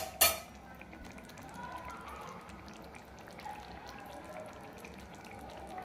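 A metal ladle clanks once against the kadhai, then thick pea-and-mushroom curry gravy simmers on the flame with soft, irregular bubbling.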